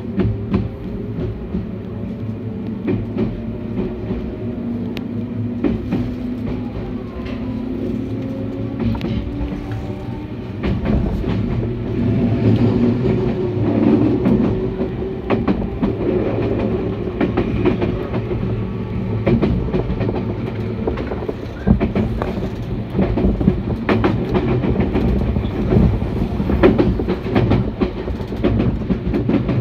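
Electric train heard from inside a passenger car as it pulls out of a station and gathers speed: a whine slowly rises in pitch over a steady low hum while the wheels click and clack over the rails. The running noise grows louder about ten seconds in.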